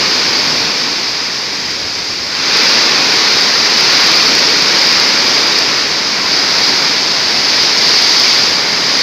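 Heavy tropical downpour: a dense, steady hiss of rain that gets louder about two and a half seconds in.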